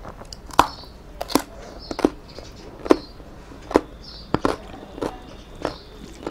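Close-up chewing of crisp raw vegetable slices, a sharp crunch about every three-quarters of a second.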